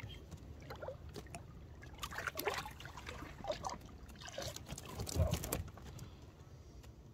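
Water trickling and splashing in small irregular gurgles, the strongest about five seconds in.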